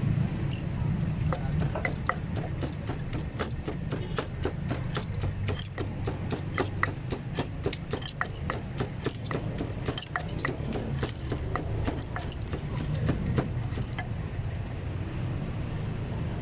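Pestle pounding green papaya salad in a mortar: a steady run of sharp knocks, several a second, stopping near the end, over a low background rumble.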